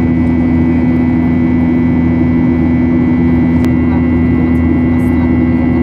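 Ryanair Boeing 737's jet engine heard from inside the cabin by the wing while climbing out after takeoff: a loud, steady drone with a strong low hum and a thin high whine.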